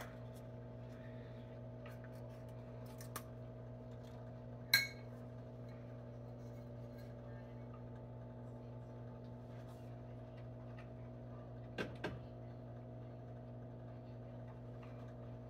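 Measuring cups and glass bowls handled on a kitchen counter over a steady low hum: a few light clicks, one ringing clink about five seconds in, and a quick double knock about twelve seconds in.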